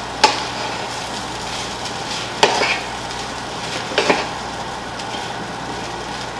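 Fried rice sizzling in a non-stick frying pan while a wooden spatula stirs and scrapes it, with a few sharp knocks of the spatula against the pan: one just after the start, one about two and a half seconds in, and a quick double knock about four seconds in.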